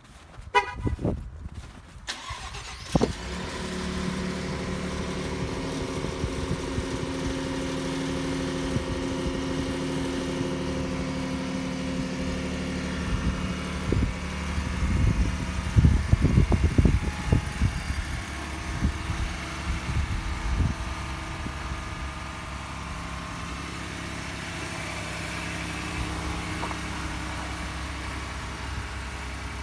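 2018 Ford F-150's 2.7-litre twin-turbo EcoBoost V6 cold-started at about 10 degrees. The starter cranks for about two seconds with a rising whine, the engine catches, and it runs at a steady fast cold idle that eases down a little about twenty seconds in. A cluster of irregular thumps comes midway.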